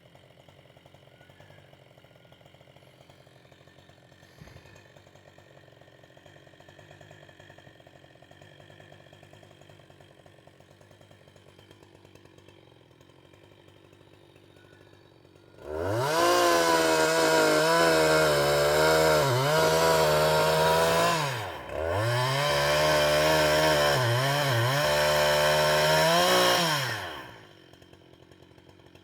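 Two-stroke chainsaw ticking over faintly, then throttled up to full revs about halfway in for two runs of roughly five seconds each, split by a brief let-off. The pitch wavers during the runs, and the saw drops back to a faint idle near the end.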